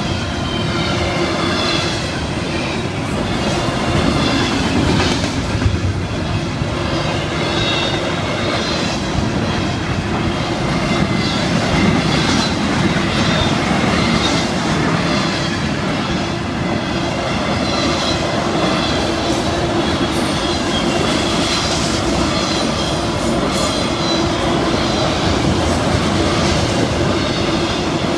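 Florida East Coast freight train's double-stack container cars and autorack cars rolling past at a grade crossing: a steady rumble of steel wheels with repeated clicks over the rail joints, and a steady tone held above it.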